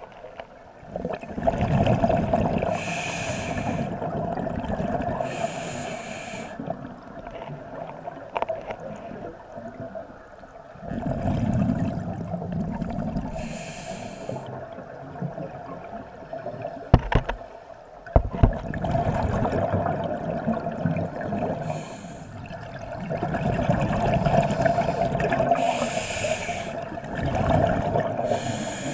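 Scuba diver breathing through a regulator underwater: long bubbling, rumbling exhalations alternating with short hissing inhalations, repeating several times. A couple of sharp clicks come about two-thirds of the way through.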